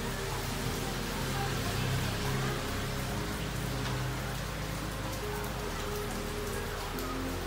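Steady rain falling, with scattered drips, over soft background music of held low notes.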